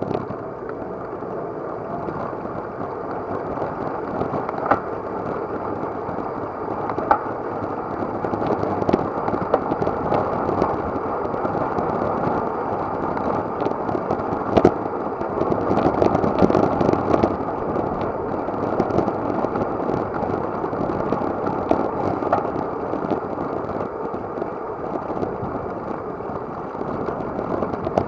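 Steady muffled rush of wind and road noise from riding a road bicycle at speed, with scattered sharp clicks and knocks, a few louder ones about five, seven and fifteen seconds in.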